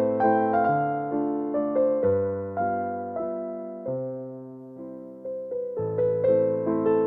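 Background music: a slow, gentle piano melody with sustained bass notes.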